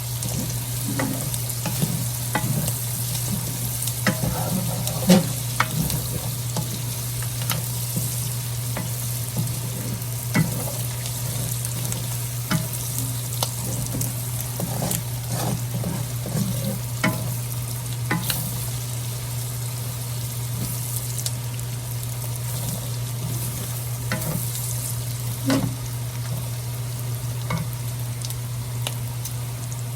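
Food sizzling in a hot frying pan while a spatula stirs it, scraping and tapping against the pan at irregular moments, with a steady low hum underneath.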